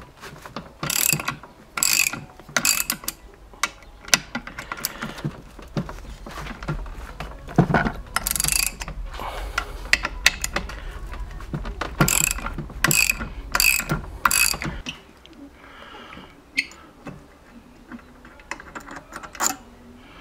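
Ratchet wrench with a 12 mm socket clicking in bursts of quick strokes as it unscrews the water-pump housing bolts of an outboard's lower unit, with pauses between the bursts.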